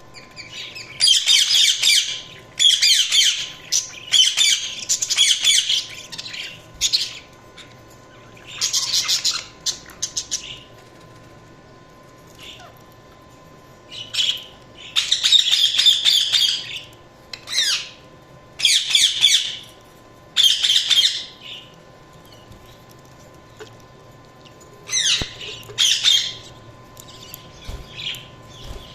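Budgies chirping and chattering in short bouts of rapid squawky calls, each about a second long, with pauses between them.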